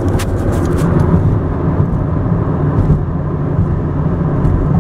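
Steady road and engine noise inside a moving car's cabin, a constant low rumble. A few light clicks and rustles come in the first second or so.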